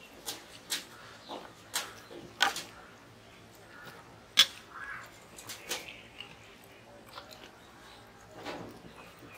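Eating rice by hand from stainless steel plates: scattered sharp taps and clicks of fingers on the metal plates as the rice is mixed and scooped, the loudest a little over four seconds in, with soft mouth sounds of eating.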